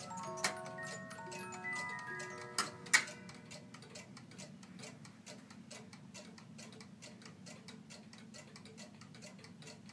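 1977 Emil Schmeckenbecher one-day Black Forest cuckoo clock: its music box plays the last notes of its tune, with a few sharp clicks from the mechanism, the loudest about three seconds in as the music stops. After that the clock ticks steadily.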